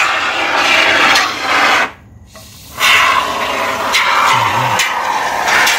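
Aerosol can of SISTA M525 polyurethane expanding foam spraying through its nozzle tube, a loud hiss as the foam is forced out. It stops for about a second about two seconds in, then starts again.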